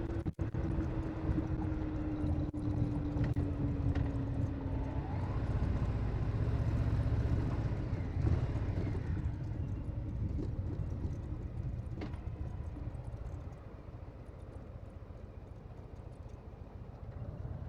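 Harley-Davidson Low Rider S V-twin engine running as the bike rides along, with wind on the microphone. The engine's pitch falls over the first few seconds, and the sound grows quieter about three-quarters of the way through.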